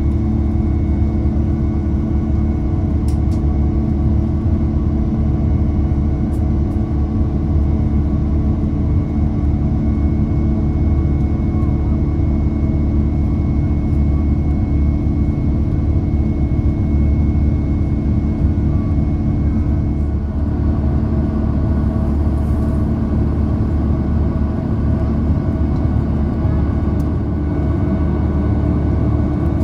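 Cabin noise of an Airbus A330-900neo climbing after takeoff: a steady low rumble from its Rolls-Royce Trent 7000 engines, with a few constant hums over it.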